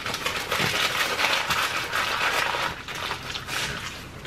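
Close-miked chewing of crispy fried food: a dense run of wet crunching and mouth sounds.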